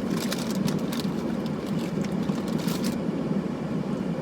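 Chewing and crunching on crunchy puffed sweet potato snack bites, in short crackly clusters over the first three seconds, over a steady low hum.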